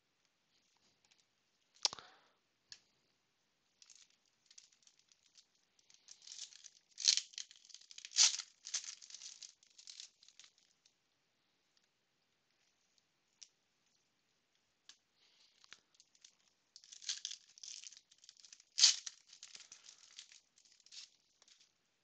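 Stiff Panini Prizm basketball cards being flipped and slid against each other by hand: a sharp snap about two seconds in, then two spells of rapid sliding and clicking, each with a couple of louder snaps.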